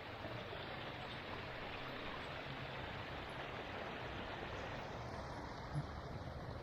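Steady rush of fast-flowing floodwater in a rain-swollen creek, with one soft knock near the end.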